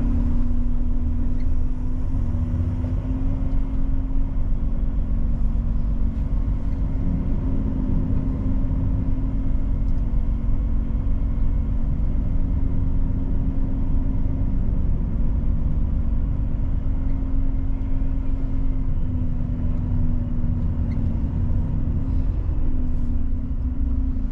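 Volvo FH truck's diesel engine running while the truck moves slowly into position, heard from inside the cab: a steady low rumble with a hum that shifts slightly in pitch a few times.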